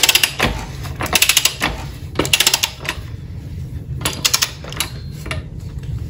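Ratcheting torque wrench clicking in four quick runs as the motorcycle's rear axle nut is run down toward its 81 foot-pound setting.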